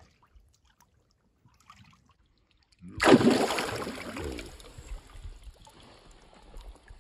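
Near silence, then about three seconds in a sudden loud splash as a released zander thrashes free in shallow water, fading into trickling and lapping water.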